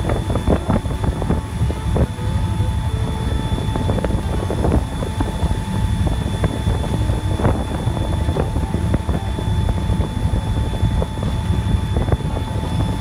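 Moving train: a steady heavy low rumble with many scattered clicks and knocks, and a faint steady high whine.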